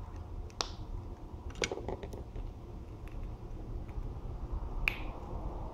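Small plastic toy parts of Pinypon figures clicking as heads and hair pieces are pulled off and pushed on: a few sharp clicks, about half a second in, around a second and a half in, and near the end, over a low steady hum.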